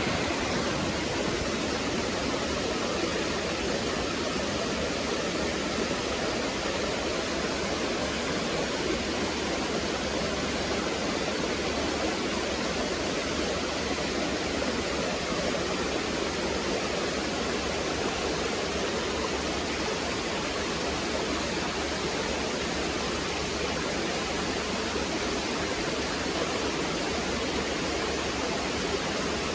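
Small waterfall on a stream: water falling and gurgling in a steady rush.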